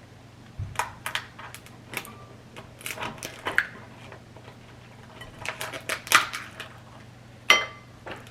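Blue crab shells being cracked and picked apart by hand: a run of irregular sharp cracks and clicks, with one louder, briefly ringing click near the end.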